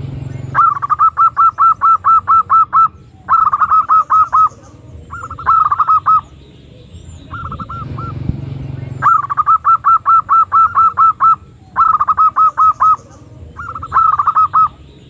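Female zebra dove (perkutut) lure call: rapid runs of short, staccato notes, about five a second, in bursts of one to two seconds separated by short pauses. It is the call used to draw wild zebra doves in.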